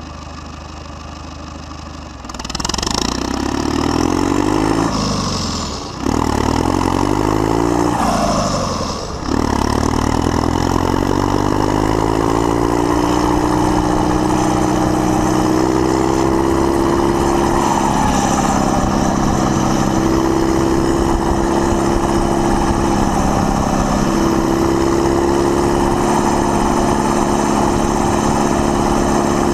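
Case International 856 XL tractor's six-cylinder diesel running through an open exhaust pipe with no muffler. It is quieter for the first two seconds, then revs up with the pitch climbing. The revs drop back twice, about five and nine seconds in, then climb gradually and settle to a steady run while the tractor drives along.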